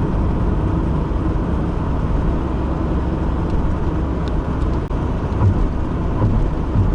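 Steady low drone inside a moving car's cabin: a worn wheel hub bearing humming under road and tyre noise. The driver suspects the bearing's inner race is turning on the hub.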